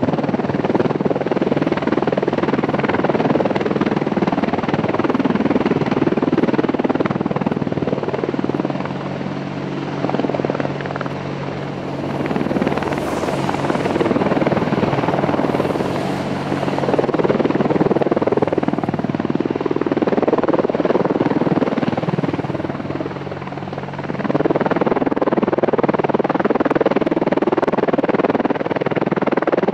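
AH-64 Apache attack helicopter hovering low: a loud, continuous beat of its four-blade main rotor over the twin-turboshaft engine noise, swelling and easing a few times. A high hiss joins briefly about halfway through.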